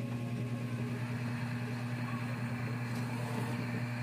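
Steady low hum with an even, soft hiss under it, as a gas stove burner burns beneath a pot.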